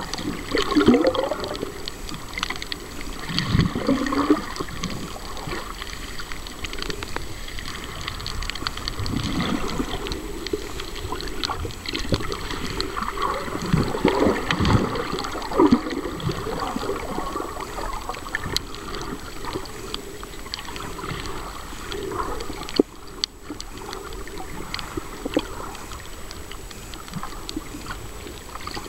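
Water sloshing and gurgling, muffled, heard through an underwater camera housing, coming in irregular swells with faint clicks.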